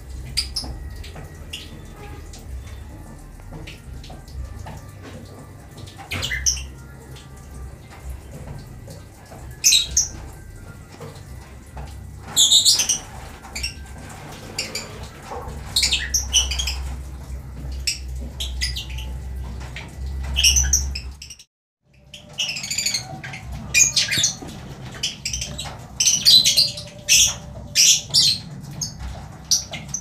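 A colony of lovebirds calling with short, shrill chirps and squawks, scattered through and busier in the second half, over a steady low rumble. The sound cuts out completely for a moment about two-thirds of the way through.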